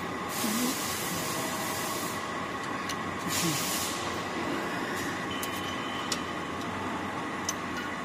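Shoelace tipping machine running with a steady mechanical hum. Two bursts of air hiss break in, one about two seconds long starting just after the beginning and a shorter one around three and a half seconds in, with a few light clicks later on.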